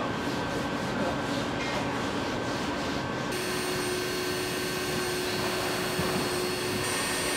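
Steady machinery hum and hiss of a factory floor, with constant tones. About three seconds in, it shifts to a brighter hiss with a new steady hum.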